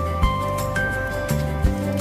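Background music with a steady beat: held melody notes over a bass line that changes notes every second or so.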